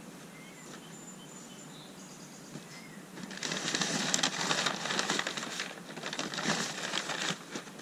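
A few faint bird chirps over a quiet background. About three seconds in, packing paper is rustled and crinkled loudly and keeps going in bursts, as parts are dug out of a shipping box.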